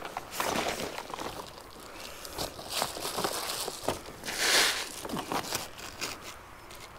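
Reflectix foil-bubble insulation crinkling and rustling as it is handled and shifted into place: irregular crackles, with a louder rustle about four and a half seconds in.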